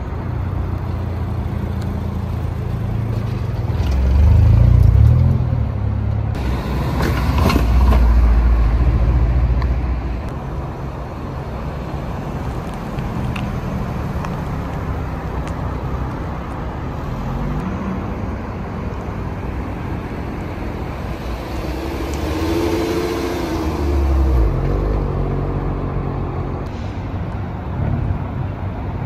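Car engines and exhausts as cars drive slowly past. A deep exhaust rumble swells twice in the first ten seconds, and an engine's pitch rises and falls a little past the middle.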